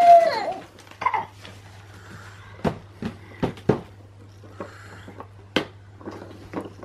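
Light, sharp plastic clicks and taps, about seven at irregular intervals, from a toddler handling a plastic toy dump truck.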